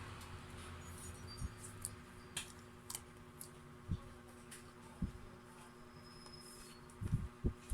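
Close-miked eating sounds of someone eating mango: scattered small wet mouth clicks and a few soft low thumps, more of them near the end, over a faint steady hum.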